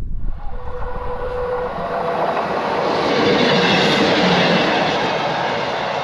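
Electric commuter train passing, its noise building to its loudest about halfway through and then slowly easing off.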